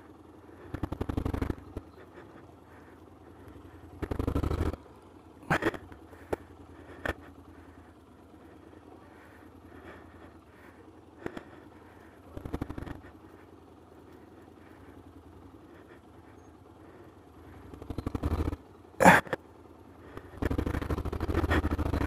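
Motorcycle engine idling, revved in five short bursts of throttle of about a second each. A few sharp knocks fall between the revs, the loudest about 19 seconds in.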